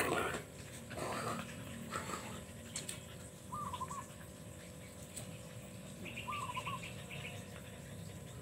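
Two short breathy huffs from the dogs near the start, then a few short, wavering chirping calls from a bird, each the same brief phrase, repeated every two to three seconds.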